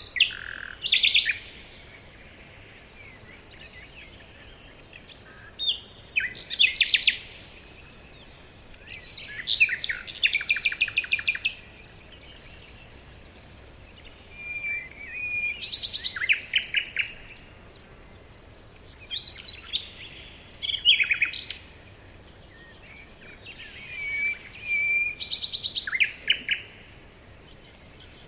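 A bird singing the same kind of phrase over and over, about six times, each a burst of fast trills and short whistled notes lasting a couple of seconds, with pauses of a few seconds between phrases.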